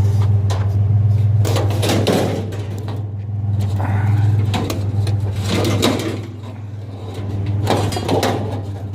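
Truck engine idling steadily, with a few bouts of clanking and rattling as lightweight metal shelves are handled and shoved into the truck bed.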